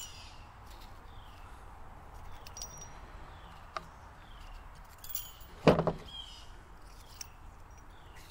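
Hand work on lawnmower transmission parts and tools: a small click a little before four seconds in and one loud knock of metal parts about six seconds in, with birds chirping repeatedly in the background.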